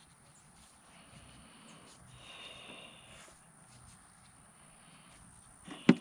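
Quiet outdoor background while gloved hands handle and twist stripped wire ends, with a faint high-pitched sound lasting about a second, two seconds in. A single sharp knock comes near the end.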